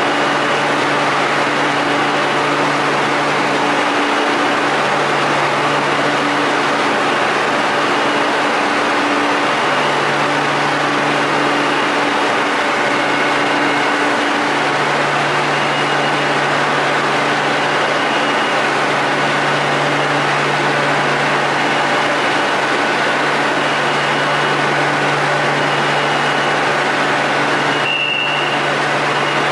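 A Madrid Metro Serie 8000 train standing at the platform with its doors open: a steady hum from its onboard equipment under a constant hiss, with a low tone that drops out and returns every few seconds. A brief high beep comes near the end.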